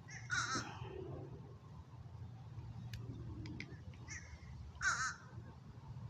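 Two short, harsh bird calls, one about half a second in and one about five seconds in, with a few faint clicks between them.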